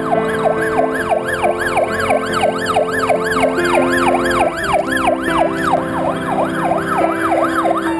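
Fire engine siren sounding in fast rising-and-falling sweeps, about three a second, that cut off suddenly near the end.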